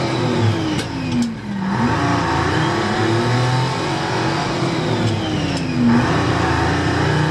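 Vehicle engine heard from inside the cab while driving, its pitch sagging and then climbing steeply twice as it pulls through the revs. A couple of short clicks about a second in.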